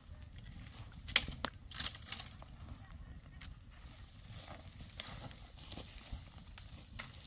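Dry wheat stalks rustling and crackling in irregular, sharp strokes as they are cut and handled during hand harvesting, over a steady low rumble.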